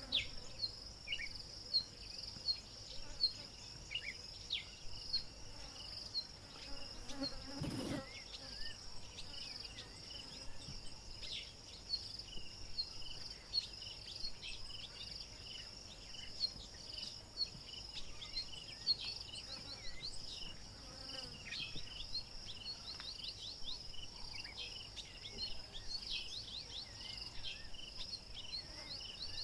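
Insects droning steadily at a high pitch, with many short, high chirps over the drone. One dull knock comes about eight seconds in.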